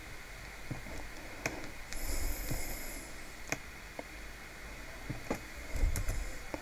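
A few sharp single computer mouse clicks, spaced irregularly, over a faint steady background hiss, with two brief soft rustling noises between them.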